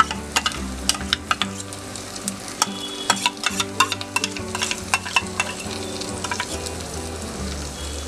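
Chopped onion and diced capsicum sizzling in hot oil in a frying pan. Many sharp clicks come from a spoon tapping and scraping on the pan as garlic and ginger paste are added.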